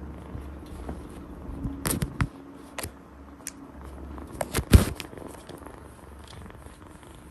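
Scattered sharp clicks and knocks as a kitten paws at the thin metal bars of a wire playpen, with a low hum underneath. The loudest knock comes about four and a half seconds in.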